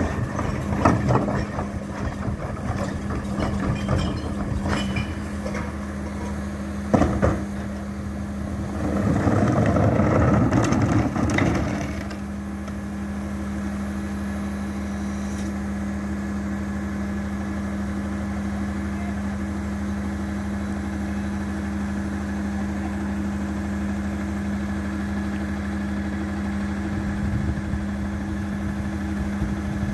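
Rear-loading recycling truck (Leach 2R-III body on a Peterbilt) idling with a steady hum. In the first several seconds, recyclables clatter and knock as carts are dumped into the hopper, with one sharp knock about seven seconds in. Around the ten-second mark the truck grows louder for about three seconds as the packer cycles, then settles back to a steady idle.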